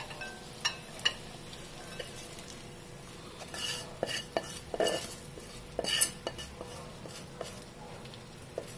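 A slotted spatula scraping fried green chillies out of a non-stick kadai into a glass bowl: irregular scrapes, taps and knocks of spatula on pan and bowl, a few louder scrapes in the middle.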